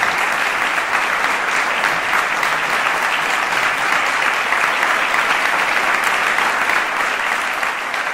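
Audience applauding steadily, a dense even clapping that begins to die down near the end.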